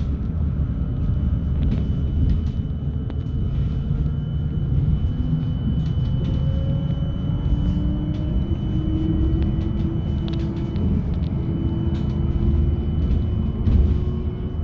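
Trolleybus running, heard from inside: steady road rumble with the electric traction motor's whine rising slowly in pitch as it gathers speed, a steady high tone over it, and scattered light clicks and rattles.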